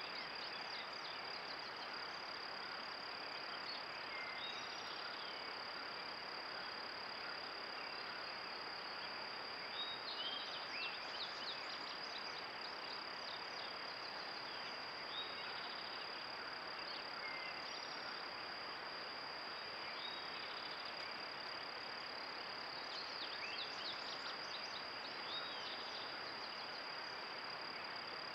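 Steady high-pitched insect drone over a constant hiss, with scattered short chirps that come more thickly about ten seconds in and again near the end.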